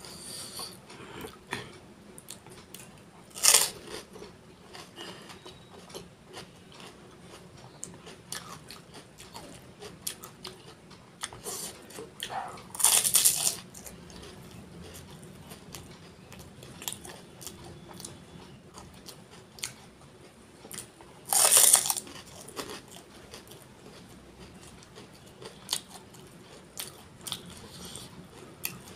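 Close-miked eating of pani puri: the crisp puris crunch loudly three times, about 3.5, 13 and 21.5 seconds in. Wet chewing and small mouth clicks run between the bites.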